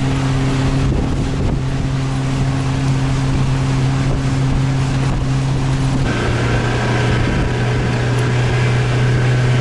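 Outboard motor running steadily at speed, driving a motorboat along the river, with wind buffeting the microphone. About six seconds in, the engine note steps slightly lower.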